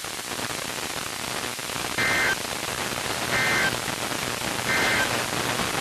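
NOAA Weather Radio broadcast under steady radio static, with three short two-tone digital data bursts about 1.4 seconds apart. These are the SAME end-of-message code that closes an Emergency Alert System warning.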